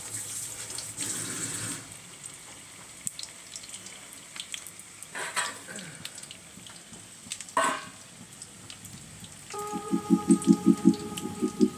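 Besan-battered baingan bharta pakoras deep-frying in a kadai of hot oil, sizzling with scattered crackles, louder in the first couple of seconds. Near the end a rhythmic pulsing tone starts over the frying.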